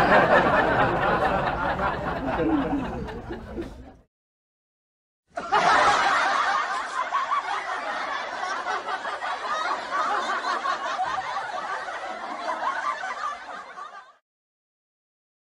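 Laughter sound effect in two stretches: about four seconds of laughing, a hard cut to silence for over a second, then about nine more seconds of laughter that ends just as abruptly.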